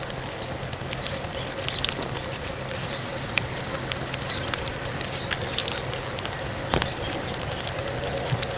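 Close-miked eating sounds played back at five times speed: rapid crackling chewing and mouth clicks over a steady low hum, with one sharper click about seven seconds in.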